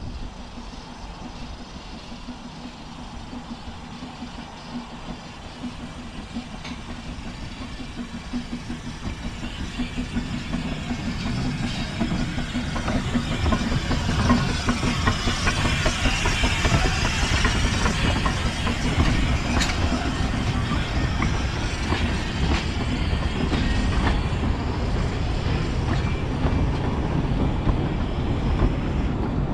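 Talyllyn Railway steam locomotive No. 7 Tom Rolt approaching with its narrow-gauge train, the rumble growing louder over several seconds as it arrives. The coaches then run past close by, with sharp clicks from the wheels over the rail joints.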